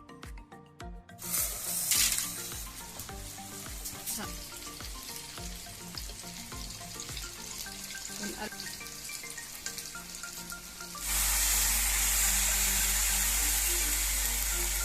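Food frying in hot oil, a steady sizzle that turns louder about eleven seconds in, over background music.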